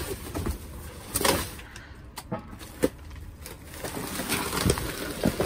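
Plastic trash bags rustling and things knocking as a dumpster's contents are shifted by hand, in several short separate rustles and knocks.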